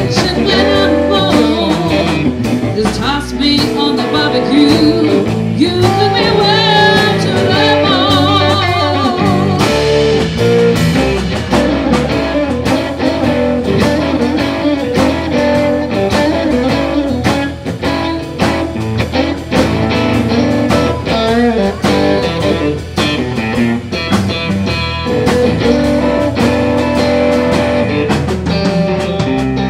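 A live band plays blues-rock: a woman sings with vibrato over electric guitar, bass guitar and drums. About ten seconds in the voice drops out and the band plays on, with the electric guitar to the fore.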